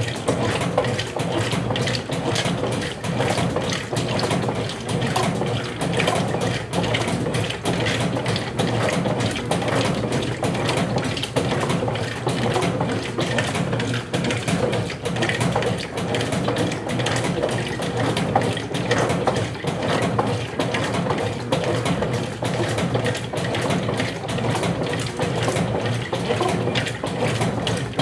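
Brastemp Clean 7 kg (BWC07) washing machine in its rinse cycle: water churning and sloshing in the tub over a steady motor hum, swelling and easing every couple of seconds.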